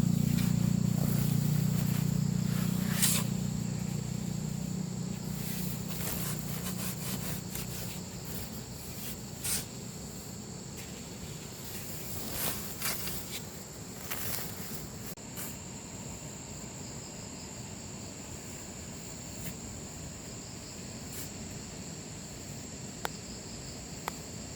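Insects calling outdoors with a steady high-pitched tone. A low hum fades away over the first several seconds, and a few scattered clicks sound.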